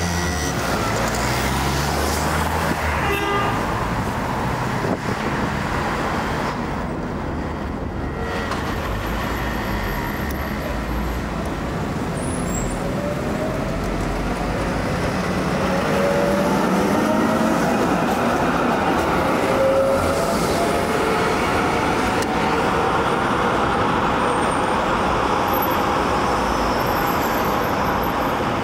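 City street traffic: cars passing and an electric tram running along street tracks. Partway through, a whine glides up and down.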